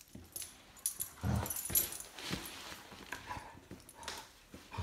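Pit bull puppy scuffling and rustling at a floor rug with its mouth and nose, with a few short low grunts.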